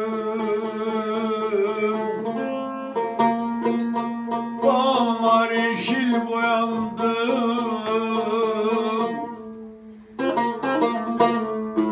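A man's voice singing a Turkish folk song to his own accompaniment on a cümbüş, the fretless banjo-like lute with a metal bowl, its plucked strings ringing under long, wavering sung notes. Near the end voice and strings fade for about a second, then a run of quick plucked notes starts.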